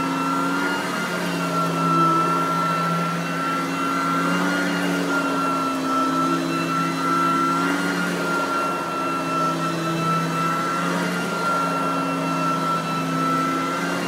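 Riccar Supralite Sand Trap upright vacuum running while pushed back and forth over carpet: a steady motor whine whose pitch wavers slightly with each stroke.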